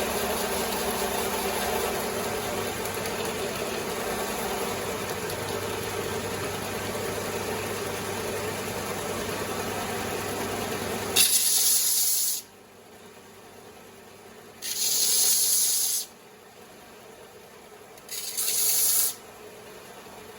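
Electric belt sander motor running steadily, then shut off about eleven seconds in after a loud hiss. Two more short, loud hissing bursts follow, a few seconds apart.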